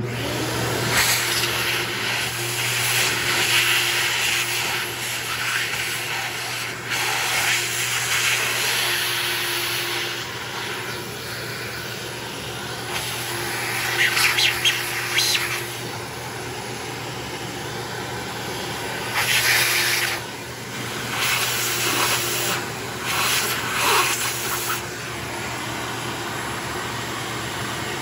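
Shop vac switched on and running steadily, its hose nozzle sucking dirt and paper towel out of the intake and exhaust ports of a Briggs & Stratton V-twin engine, with several brief louder rushes of air.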